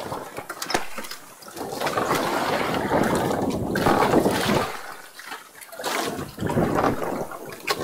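Sea water splashing and rushing in two surges, the first about three seconds long, the second shorter.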